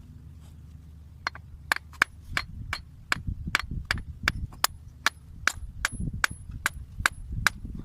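Hammer blows on metal, about three strikes a second and each with a short bright metallic ring, beginning about a second in, over a low steady hum.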